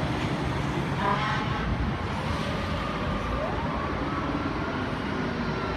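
Fire engine siren wailing over city traffic noise, its tone sweeping up about three seconds in and holding high.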